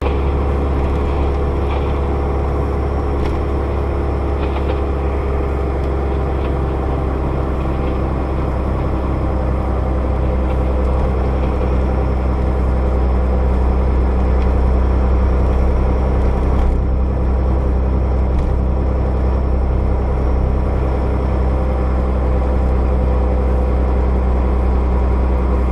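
Steady engine drone and road noise heard inside a moving vehicle's cab, with a strong low hum, rising slightly in level about halfway through.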